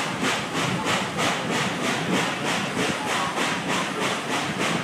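Nickel Plate Road 765, a 2-8-4 Berkshire steam locomotive, working ahead of the train, its exhaust chuffing about four times a second, over the steady rumble of the passenger car running on the rails.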